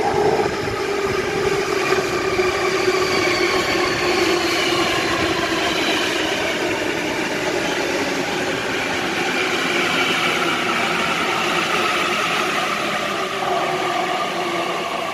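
Sydney Trains Waratah (A set) electric train, its traction motors whining in several tones that fall slowly in pitch as the train slows, over the rumble of the wheels on the rails.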